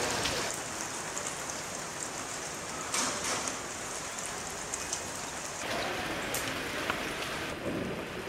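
Steady rain falling on wet ground and puddles, with a brief louder burst of hiss about three seconds in.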